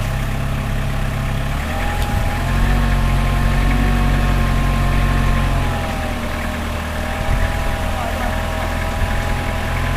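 Heavy vehicle engine running under load, its low drone swelling about two and a half seconds in and easing around six seconds, with a long steady whine above it.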